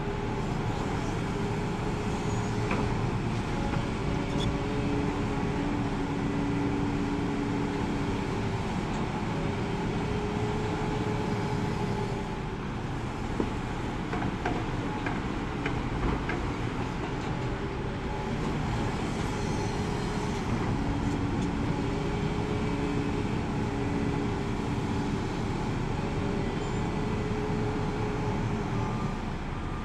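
Hidromek 390 excavator running steadily with a deep diesel rumble, and a whine that rises in and fades out again every several seconds as it works.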